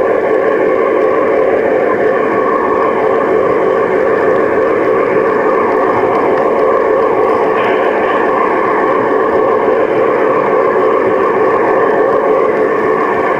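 Garden-scale model Shay locomotive running steadily, its drive and wheels rolling on the track just under the microphone: an even, unbroken mechanical running noise.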